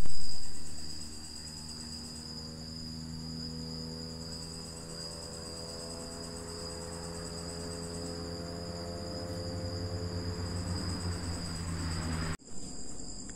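Insects trilling steadily at a high pitch, with a low steady hum underneath. A loud sound at the very start fades away over about a second.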